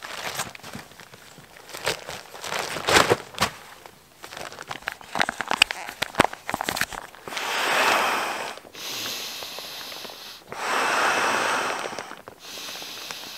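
Nylon fabric rustling and crinkling as gear is handled and a stuff sack is pulled open. About halfway through come two long breaths blown into an inflation valve, each lasting a second or two.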